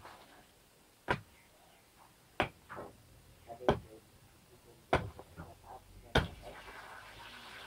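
Heavy digging hoe chopping into hard soil, five strikes about 1.3 seconds apart. The last strike pierces a buried water pipe, and a steady hiss of water spraying out begins right after it.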